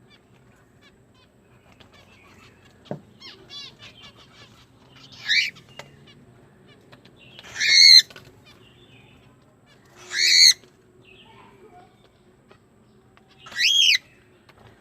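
Pet cockatiel calling: four loud calls, each about half a second long and a couple of seconds apart, the last one rising and falling in pitch. Softer chirps come before the first loud call.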